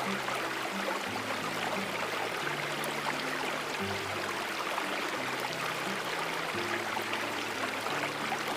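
Steady rushing of a flowing stream, with soft, slow low music notes held and changing underneath.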